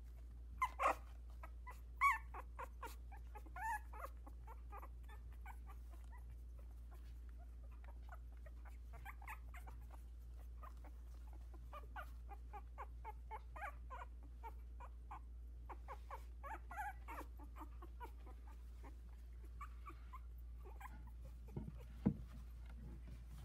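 Two-week-old Havanese puppies whimpering and squeaking in short, high calls, loudest in the first few seconds, with many fainter squeaks after. A brief low bump near the end.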